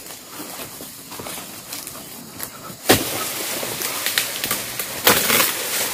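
Oil palm fronds being cut with a long-poled harvesting sickle: a sharp crack about three seconds in, then a few seconds of rustling, crashing leaves as the cut foliage comes down.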